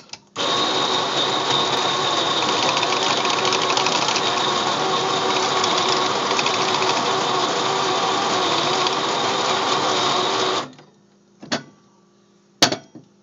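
Baratza Preciso conical burr grinder grinding coffee beans into a portafilter: a steady motor and burr whir for about ten seconds that cuts off sharply. Two short sharp knocks follow near the end.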